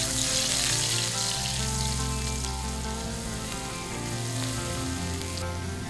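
Grated garlic sizzling in hot oil in a wok as it is stirred with a silicone spatula, sautéed until fragrant and starting to brown. The sizzle softens a little near the end.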